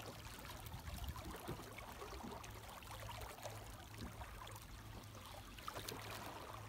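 Water lapping and trickling against the side of a small boat, a steady quiet wash with a low rumble underneath.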